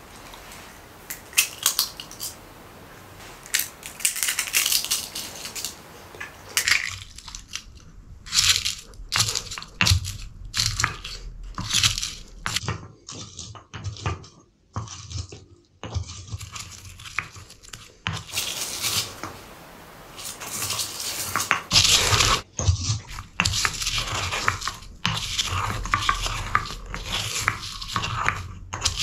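Wooden pestle crushing and grinding in a wooden mortar, in irregular scraping, crunching strokes that grow denser and louder near the end.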